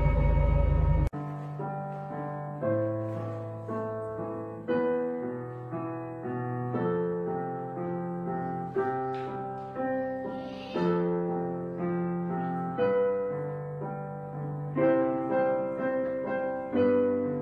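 Background music: a slow, gentle keyboard piece whose notes are struck and then fade, coming in after a loud intro sting that cuts off suddenly about a second in.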